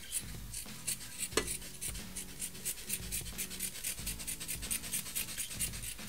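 Scissors snipping through fibrous sound-deadening fabric. The crisp snips come singly at first, with a sharper one about one and a half seconds in, then quicken to several a second.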